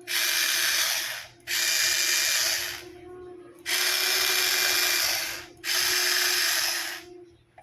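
Motor and planetary gearbox of an OR-T 250 battery strapping tool running in four short bursts of about a second and a half each, giving a ratcheting whirr, as the repaired tool is test-run.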